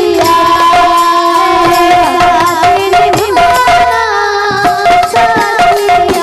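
Live folk kirtan music: barrel drums beaten in a fast, dense rhythm with wooden hand clappers, under steady held melody notes and a woman's singing.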